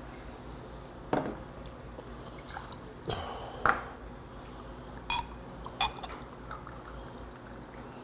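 Soju poured into a glass, with several sharp glass clinks of bottle and glass on each other and the table, then beer poured from a glass bottle into the same glass near the end: mixing somaek.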